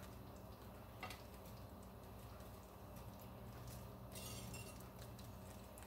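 Very quiet room with a low steady hum. A faint click comes about a second in, and a faint rustle with light clicks about four seconds in, as metal kitchen tongs lift roasted asparagus off a parchment-lined sheet pan.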